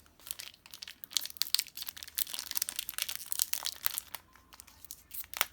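Foil wrapper of a Pokémon booster pack crinkling and tearing as it is opened by hand: a dense run of crackles, with a sharp snap near the end.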